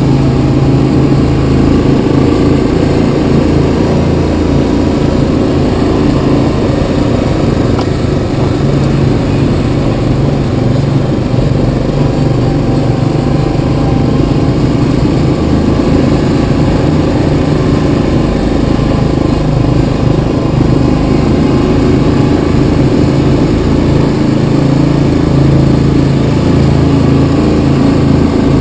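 Yamaha Kodiak 700 ATV's single-cylinder four-stroke engine running steadily as the quad rides along a dirt trail.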